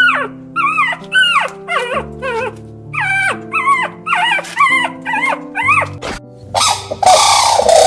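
A dog giving a series of short, high yips and whimpers, each rising then falling in pitch, about two a second, over background music. Near the end a different, busier animal call takes over.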